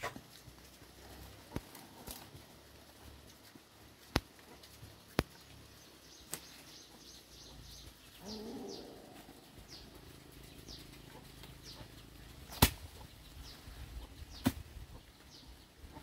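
Scattered sharp knocks and snaps from poles and dry sticks being handled while a mesh fence is put up, the loudest about three-quarters of the way through. A bird calls through the middle with a run of short, high, falling chirps.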